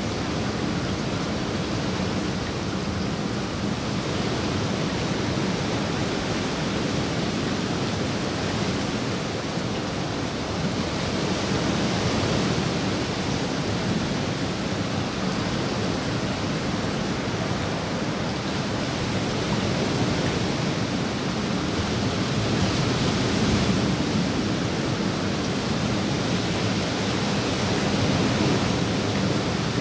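Steady rain falling on a swimming pool's surface and the surrounding foliage, a constant even hiss with slow, gentle swells in loudness.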